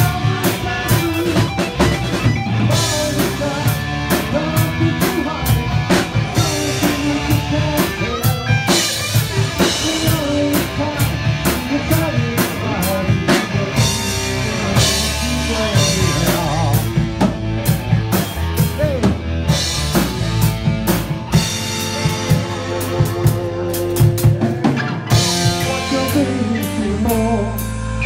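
Live rock band playing a sound check: electric guitar over a drum kit, with steady drum strikes and no break.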